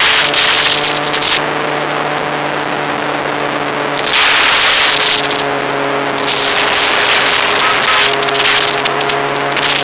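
Motorcycle engine holding a steady note while cruising at about 120 km/h, with wind rushing over the microphone in gusts that come and go every second or two.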